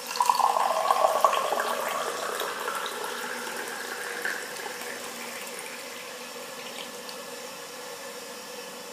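Green tea poured in a stream from a Moroccan teapot into a glass tea glass, splashing loudly at first and then quieter, rising in pitch as the glass fills, and dying away about five seconds in. It is the first rinse pour of the gunpowder tea leaves, poured off to wash the dust out of them.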